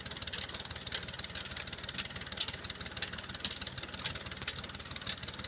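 An engine running steadily, with a fast, even chugging.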